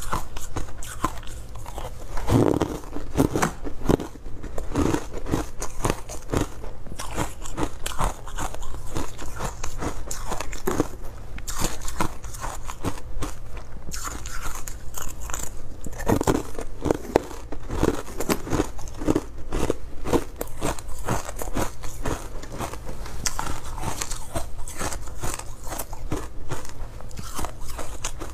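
Moulded pieces of frozen flavoured ice (refrozen buckwheat ice and frozen passion fruit ice) being bitten and chewed close to a clip-on microphone: a dense, continuous run of sharp cracking crunches.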